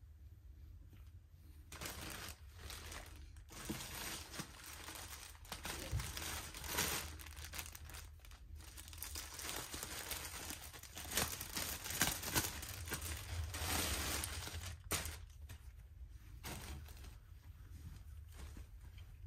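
Plastic garment poly bag crinkling and rustling as it is handled and opened and a sweatshirt is pulled out of it. The crackling comes in irregular spells, starting about two seconds in and dying down after about fifteen seconds.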